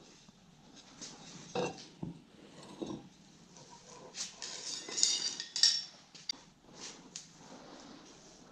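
Metal tools clinking and scraping in an irregular run of small knocks, with the loudest scrapes and clinks about five seconds in.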